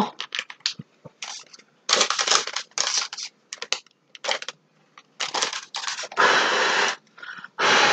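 A person blowing a series of short puffs of breath across salt dough to clear loose flour from a fresh paw-print impression. The longest puff comes about three-quarters of the way through. Light handling clicks come in the first second or so.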